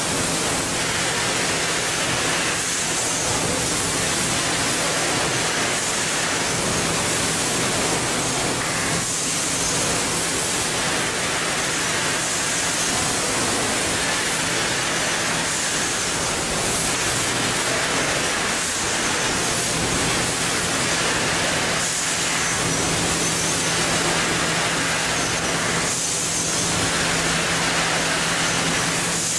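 Steady machinery noise from a bag-packing line, an even hiss with a faint low hum.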